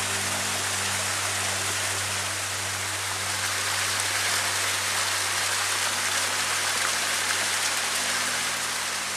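A steady, even rushing hiss with no breaks, with faint low held tones underneath.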